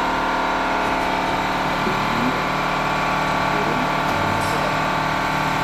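A machine running with a steady, unchanging hum.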